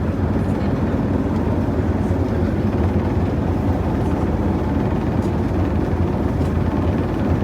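Boat engine running steadily, a continuous low rumble with a fast even pulse.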